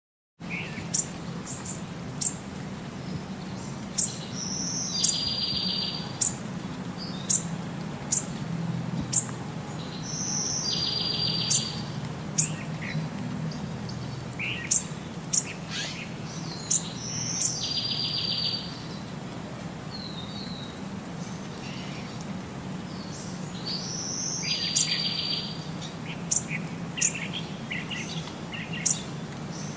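Bird chirps: sharp high chirps every second or two, with a short buzzy trill returning about every six seconds, over a low steady hum.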